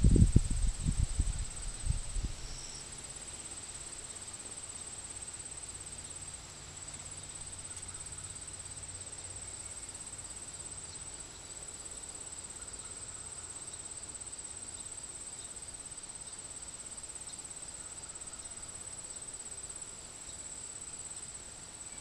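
Crickets trilling in a steady, high-pitched chorus. A few loud, low thumps come in the first two seconds.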